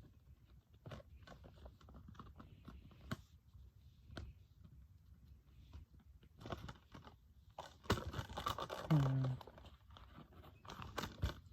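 Plastic Blu-ray case and packaging being handled: scattered small clicks and taps, then a louder stretch of crinkling and rustling about eight seconds in.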